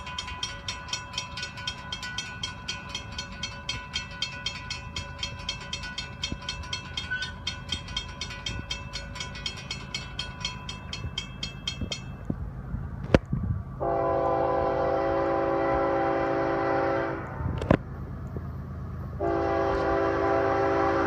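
Grade-crossing warning bell dinging steadily as the gates lower, stopping a little over halfway through. Then the approaching Florida East Coast Railway train sounds its horn in two long blasts, the second starting near the end, over a low rumble. Two sharp clicks come between the blasts.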